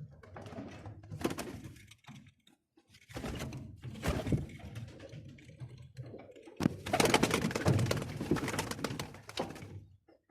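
Birmingham roller pigeons cooing and stirring in a loft, in three noisy spells with short quiet gaps between.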